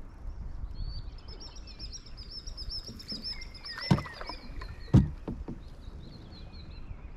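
A songbird sings a fast run of high repeated notes over a low steady rumble as the canoe moves on the river. About four seconds in come two sharp knocks a second apart, the paddle striking the canoe.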